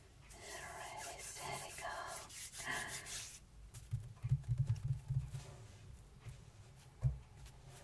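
Hands rubbing with a dry, hissy sound for about three seconds. Then a run of soft low thuds as the palms pat and press on a sheet of drawing paper lying on a wooden table, with one more thud near the end.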